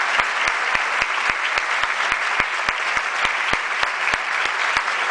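A theatre audience applauding steadily, with one clapper close by standing out in sharp, regular claps about four a second.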